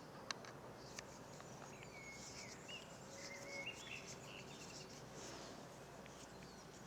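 Faint outdoor ambience with a few soft bird chirps in the middle. Two small plastic clicks in the first second as a microphone shock mount is fitted onto a handle.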